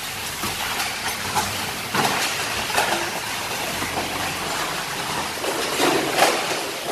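Workshop noise in a car-dismantling plant: a steady hiss with scattered knocks from the work going on.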